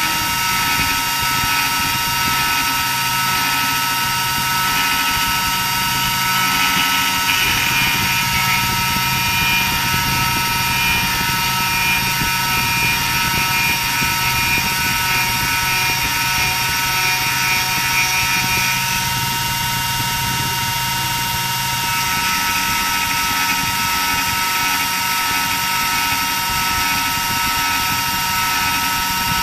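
A 300 W CNC router spindle runs with a steady high whine while a 3 mm flat end mill cuts a 1 mm-deep groove in a wood board. The cutting noise grows stronger from about 7 seconds in, and a lower hum joins it, until both ease off around 22 seconds.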